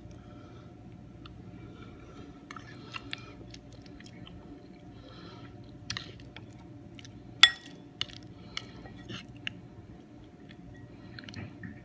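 A metal utensil clinking and tapping against a bowl, several sharp clicks with the loudest, slightly ringing one about seven and a half seconds in, over a steady low hum.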